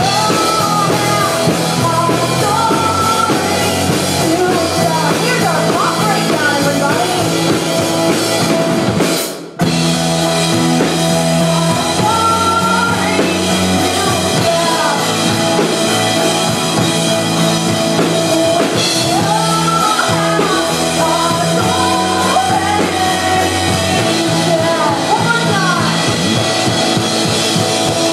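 Live band playing a pop-rock song with a singer, drum kit and guitar, loud and steady, with a split-second dropout about nine seconds in.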